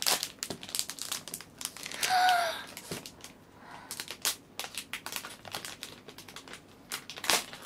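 Plastic chocolate-bar wrapper crinkling and tearing as it is pulled open by hand. A child's short exclamation about two seconds in.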